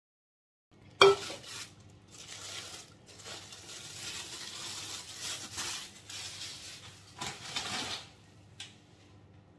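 An aluminium cake pan is set down with one sharp clank, then a plastic lining sheet crinkles and rustles for several seconds as it is peeled off a layered sponge cake.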